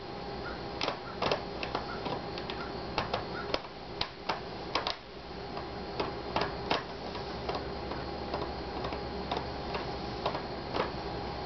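Irregular sharp clicks and ticks of a small screwdriver working screws into an Asus X54C laptop's screen hinge and bracket. The clicks come thick and fast for the first six seconds or so, then sparser and fainter.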